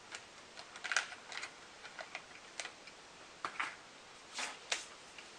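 Irregular small crisp clicks and crunches of someone chewing shortbread close to the microphone.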